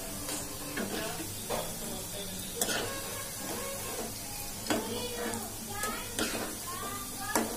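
Onion pakodi deep-frying in hot oil with a steady sizzle, while a steel slotted spoon scoops the fritters out, knocking sharply against the pan and colander several times.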